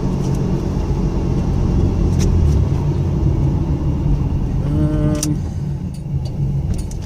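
1997 Camaro's 3.8-litre V6 engine running steadily at low speed, with road and tyre rumble heard from inside the cabin.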